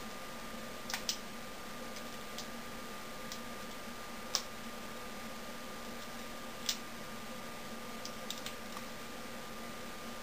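Light, scattered clicks and taps of small hand tools being handled against the battery cells, about seven in all, the sharpest about four and a half seconds in, over a steady faint hum.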